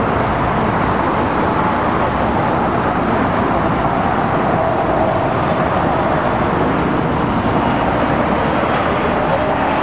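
Boeing 737-800's CFM56 jet engines running at high power as the airliner rolls down the runway: a loud, steady rushing noise, with a faint steady whine in the second half.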